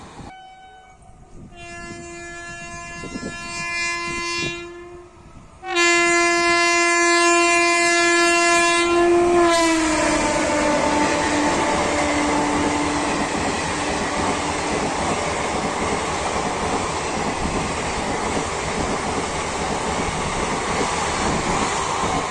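Indian Railways express train running through a station at speed: the locomotive's horn sounds twice, a shorter blast and then a longer, louder one that drops in pitch as the engine passes. Then a steady rush of passing coaches, with their wheels clattering over the rail joints.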